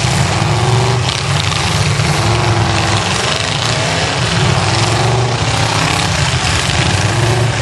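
Several demolition-derby cars' V8 engines running hard together, revving up again and again as the cars push and ram one another in the dirt.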